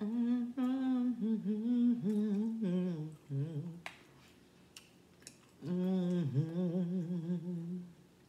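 A woman humming a wavering tune with her mouth closed, in two phrases with a gap of about two seconds between them. There is a single sharp click about four seconds in.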